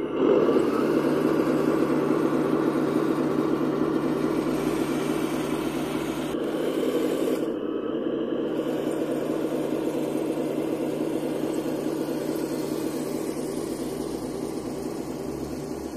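1/16 RC KV-1 model tank driving, its electronic sound unit playing a simulated diesel engine running steadily over the whir of the drive motors. The sound starts abruptly and slowly fades as the tank moves away.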